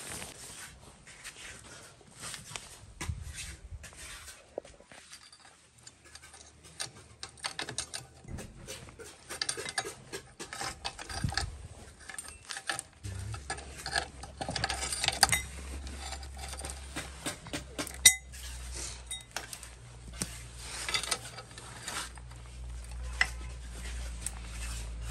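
Metal tools and parts clinking and clattering in irregular knocks as a homemade buggy gearbox is fitted in place, with one sharp, loud metallic click standing out about two-thirds of the way through. A steady low hum comes in about halfway.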